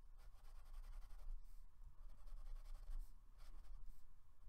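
Water-reactive pen drawing on mixed media sketch paper: a run of short pen strokes, one after another.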